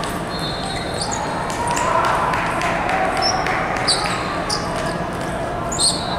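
Table tennis rally: the celluloid ball ticking sharply off paddles and the table at irregular intervals, over the steady echoing din of a large hall.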